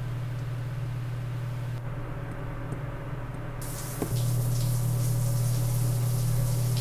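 A low, steady drone, with the hiss of a shower spraying water coming in a little past halfway; the drone grows louder as the water starts.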